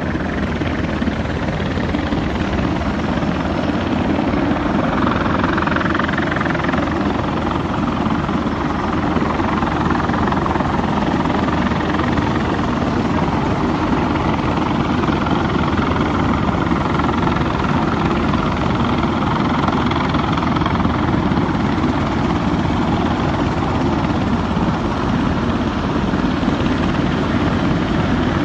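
Steady aircraft noise, a loud continuous roar with a fast low flutter and no breaks.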